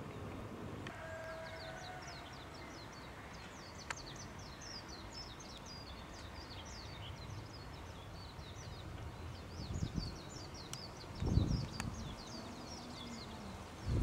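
A small songbird singing a long, rapid, high twittering song of quick chirps. A few low thumps come near the end.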